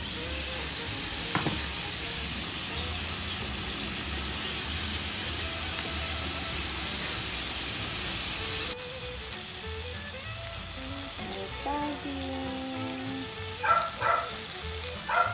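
Sweet potato slices, then halved bananas, sizzling steadily as they fry in hot oil in a pan. The sizzle drops suddenly and runs quieter from about nine seconds in.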